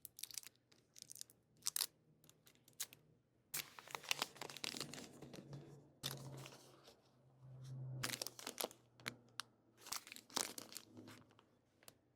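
Product packaging being handled and torn open: crinkling and tearing rustles in long stretches, broken by sharp little clicks and taps.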